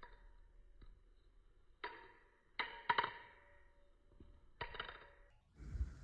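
Butterfly knife (Telesto balisong) handles and latch clacking during a flipping trick: sharp metallic clicks that ring briefly. One comes at the start, one a little under two seconds in, a quick cluster around three seconds and another a little before five seconds. A low thump comes near the end as the knife closes into the hand.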